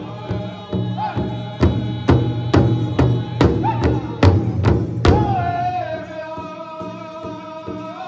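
Powwow drum group singing an intertribal song around a large hide-covered drum, the singers striking the drum together about twice a second under high group singing. About five seconds in, a hard beat is followed by one long held note that slides slightly down at its start, and the drumbeats stop.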